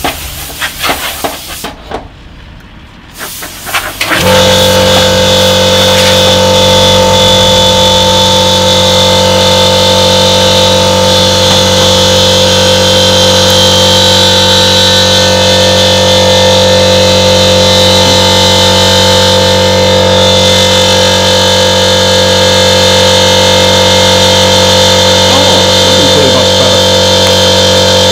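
Air compressor motor starting about four seconds in, then running at a steady, loud pitch.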